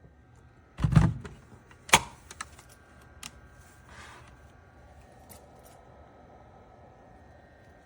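A dull thump, then a sharp click about a second later, followed by a few lighter clicks over a faint steady hum.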